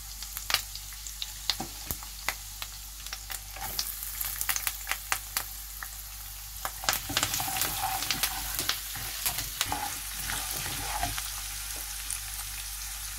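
Hot oil sizzling in a pan, with frequent sharp pops, as a tempering of cumin, mustard seeds, chana dal and urad dal fries with freshly added chopped ginger. The sizzle grows fuller about seven seconds in.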